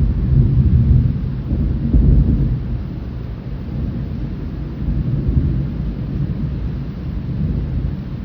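Thunder rumbling in a heavy thunderstorm. It rolls up loudest in the first two seconds, then carries on rumbling more softly, with rain faintly underneath.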